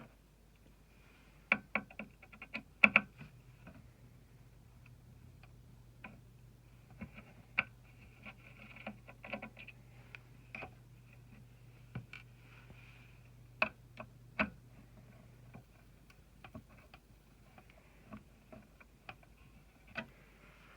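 Scattered small clicks and taps of hands handling computer hardware: small hard parts being picked up, fitted and set down, with a quick cluster of clicks early on. A faint low hum runs under them and cuts off suddenly about three-quarters of the way through.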